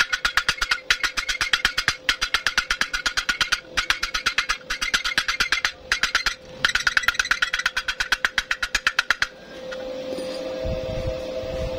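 Chipping hammer rapidly tapping slag off a fresh stick-weld bead on thin steel tube, about seven or eight ringing metal strikes a second in runs with short pauses. The strikes stop about three-quarters of the way through, leaving a steady hum.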